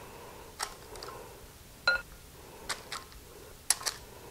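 About six light taps and clicks of a utensil against the mixing bowl and glass baking dish while sticky fudge is scraped into the dish, one of them a short ringing clink about two seconds in.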